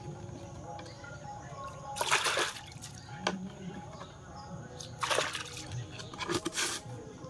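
Soap-powder mixture squirted and poured from a plastic bottle into a metal basin of water, in a few short splashing bursts.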